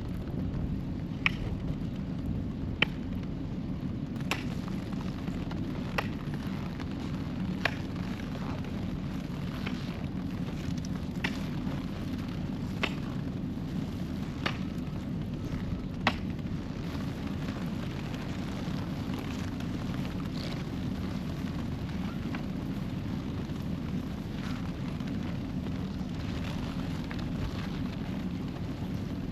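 Axe chopping through creek ice to open a watering hole, about ten sharp blows roughly a second and a half apart that stop about halfway through, over a steady low noise.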